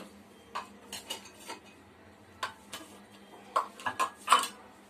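A spoon scraping and clinking against a pan in short, irregular strokes, stirring rice as it dry-roasts.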